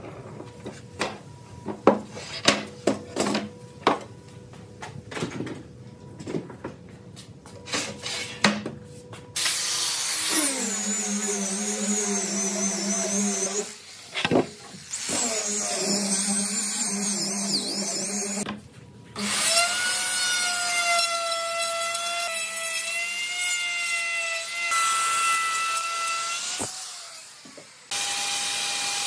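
Sharp knocks and clicks from boards and steel pipe clamps being set and tightened. From about nine seconds in, handheld power tools run on wood in three loud stretches with short gaps, a steady motor whine that shifts a little in pitch. A router starts up near the end.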